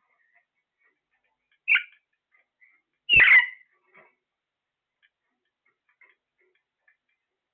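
Parrot calling: a short, sharp squawk about two seconds in, then a longer squawk a second later, with faint soft chirps in between.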